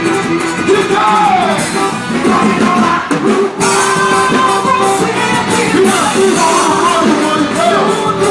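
Music with a singing voice, with a brief break about three seconds in.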